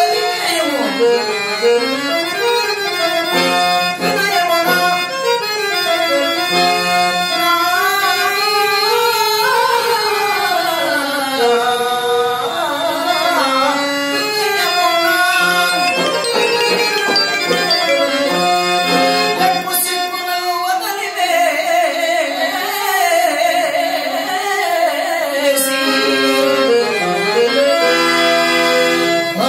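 Harmonium accompanying a man singing a Telugu padyam in long, sliding raga phrases. Near the end the harmonium carries the melody on its own in short stepped notes.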